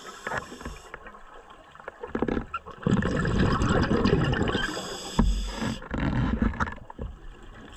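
Scuba diver breathing through a regulator underwater: a long bubbling exhale from about three seconds in, then a second burst of bubbles a couple of seconds later.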